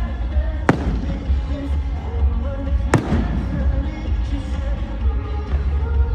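Aerial fireworks bursting: two sharp bangs about two seconds apart, over music and crowd chatter.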